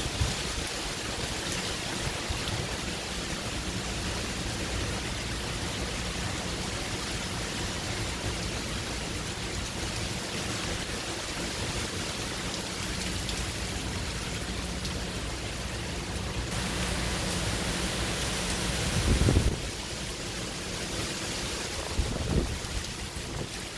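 Heavy hurricane rain and wind, a steady dense hiss with low rumbling. Two stronger gusts buffet the microphone near the end.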